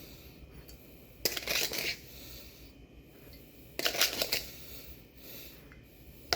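Sugar being added to a mug of coffee: two short, grainy rustles about a second and a half and four seconds in, then a sharp click near the end.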